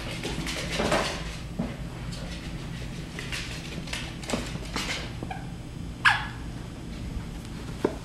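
Shetland sheepdog puppy in a plastic cone running and fetching on a laminate floor: scattered clicks, knocks and scuffs from paws and cone, with one short, loud sound falling in pitch about six seconds in.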